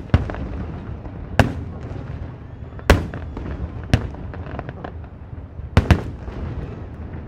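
Aerial fireworks shells bursting: a sharp bang every second or two, two in quick succession near the end, over continuous rumbling and crackling from the display.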